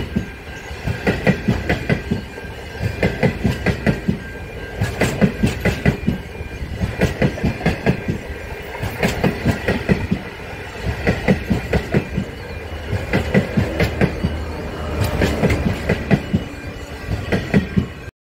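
The Ghan's stainless-steel passenger carriages rolling past, their wheels going clickety-clack over the rail joints in a cluster of clicks about every two seconds as each carriage passes, over a steady rumble with a faint high whine. It cuts off suddenly near the end.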